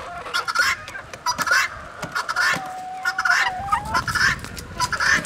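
A flock of chickens clucking with repeated short calls, one bird holding a drawn-out note for about a second midway.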